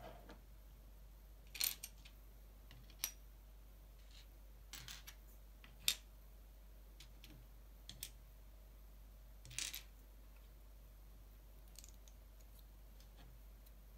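LEGO bricks clicking and tapping as they are picked out of a pile on a tabletop and snapped together by hand: scattered short, sharp clicks at irregular intervals, the loudest a little before halfway.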